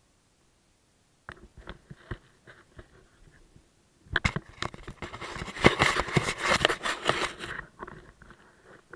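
Footsteps crunching and scraping on loose rock and grit: a few scattered steps, then a denser run of crunching from about four seconds in that lasts about three and a half seconds.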